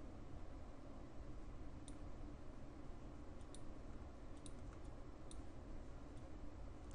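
Faint computer mouse clicks, about six scattered over a few seconds, over a steady low hiss.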